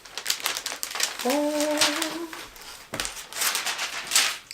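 Packaging rustling and crinkling as it is handled, with a short hummed note from a person about a second in.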